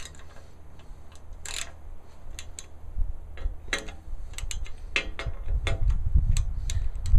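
Scattered metallic clicks of a ratchet and 5mm Allen socket tightening the screws of a motorcycle luggage-rack backrest block, coming irregularly in short runs.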